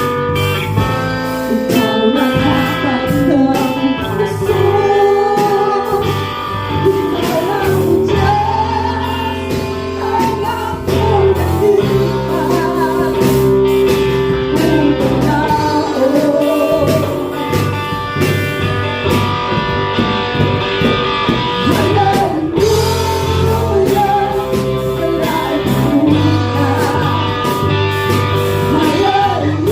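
Worship song with a voice singing the melody over guitar and a steady drum beat.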